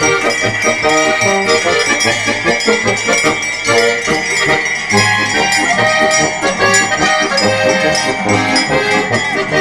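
Traditional Alpine folk music with a steady oom-pah beat, with cowbells clanking along as decorated cows walk past.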